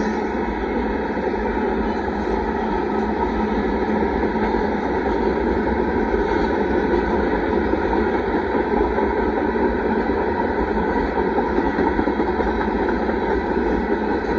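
Union Pacific rock train's freight cars rolling past at close range, a steady, even rumble with no horn.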